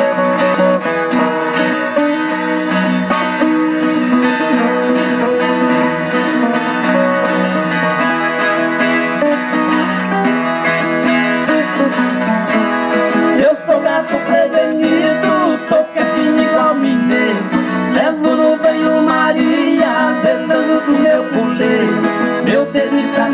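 Live caipira/sertanejo band playing an instrumental break on acoustic guitars, strummed and picked, with no singing.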